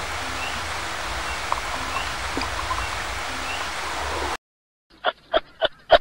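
Steady rush of running water with a few faint high chirps, which cuts off abruptly about four seconds in. Near the end comes a quick series of short pitched notes, about three a second.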